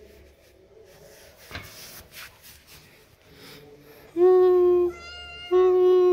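A cat meows twice in the second half: two long, loud, even-pitched meows less than a second apart, the second dropping in pitch at its end.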